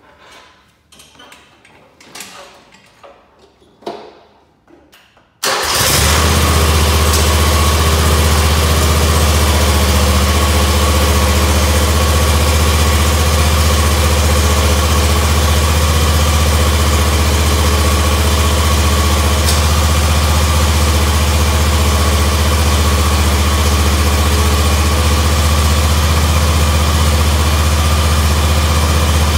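Engine of an Altoz TRX tracked zero-turn mower coming on suddenly about five seconds in, after a few faint knocks, then running loud and steady while it drives the raised track around.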